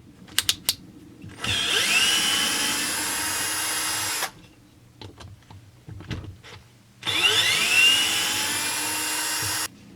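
Power drill-driver run twice, backing out the two screws that hold on a chainsaw's oiler. Each run starts with a rising whine as the motor spins up, then runs steadily for about three seconds. A few clicks come before the first run.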